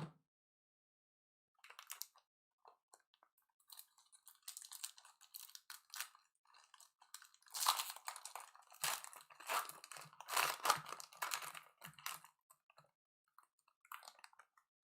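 Plastic wrapper of a Mosaic football card pack crinkling and tearing as it is opened by hand. It comes as irregular crackles, sparse at first and loudest in the middle of the stretch.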